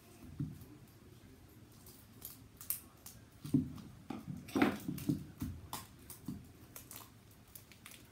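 Hands picking and peeling at the wrapping layers of a plastic toy pearl ball: irregular small clicks, taps and rustles, busiest in the middle.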